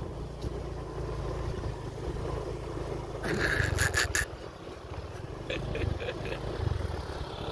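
Small motorbike engine running at low speed over a rough dirt track, a steady low rumble. A quick run of sharp scraping clicks comes about three seconds in, and fainter clicks follow about two seconds later.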